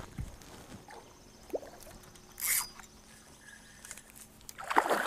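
Small water sounds at a kayak: quiet for most of the time, with a faint squeak and a brief hiss midway, then a run of splashing and dripping near the end.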